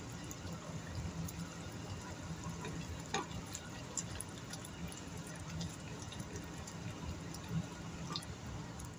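Wooden spoon stirring thick, simmering tomato sauce in a stainless steel pot: a soft steady bubbling and squelching with a couple of light knocks of the spoon.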